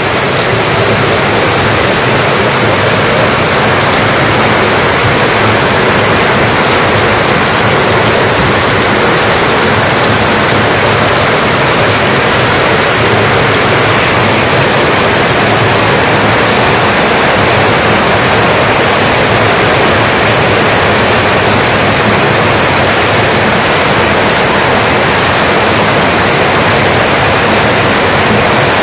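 Heavy rain falling steadily on corrugated metal roofs and trees, with runoff pouring off the eaves: a loud, even, unbroken hiss.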